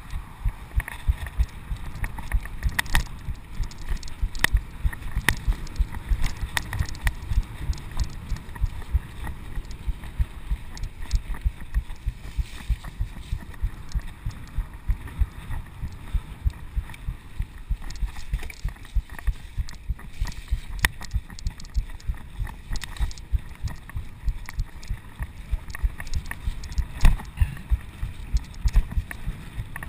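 Mountain bike riding a bumpy dirt trail, heard through a chest-mounted GoPro HD Hero 2 in its housing: rapid, irregular dull thumps and rumble as the bike and rider jolt over the ground, with an occasional sharp rattle or click.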